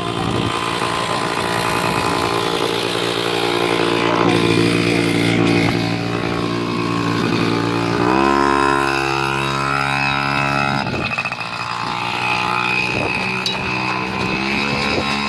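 Small engine of a mini motorcycle running steadily, its pitch stepping up about eight seconds in as the throttle is opened, then wavering up and down briefly a few seconds later.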